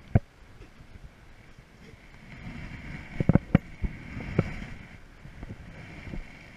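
Handling noise from a spinning rod and reel: one sharp click just after the start, then a quick cluster of clicks and knocks about three to four and a half seconds in, over a steady rush of stream water and wind on the microphone.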